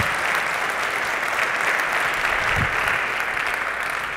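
Audience applauding: many hands clapping together in a dense, steady patter that starts to fade near the end.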